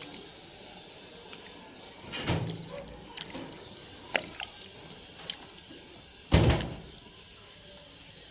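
A hand squelching and mixing cooked rice with curd in a metal pan, with two loud, dull thumps about two and six seconds in and a few light clicks between them.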